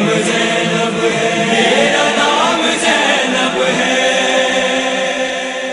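Chorus of voices in a sustained devotional chant, the close of an Urdu manqabat, beginning to fade out near the end.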